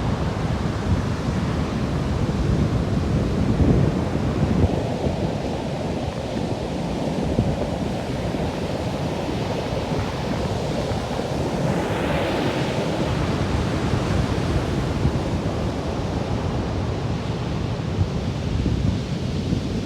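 Storm surf on the Black Sea: large waves breaking and rushing on the shore, with wind buffeting the microphone. A brighter hiss of breaking water swells up a little past the middle.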